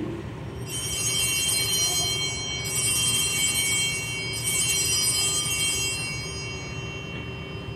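Altar bells rung three times, about two seconds apart, as the consecrated host is elevated at Mass; each ring is a cluster of high bright tones that hangs and fades, dying away near the end.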